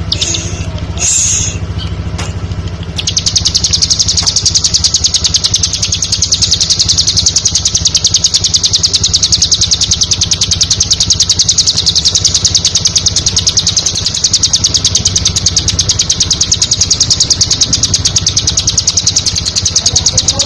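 Bar-winged prinia (ciblek) giving a few short chirps, then from about three seconds in a long, fast, unbroken high trill. A steady low hum runs underneath.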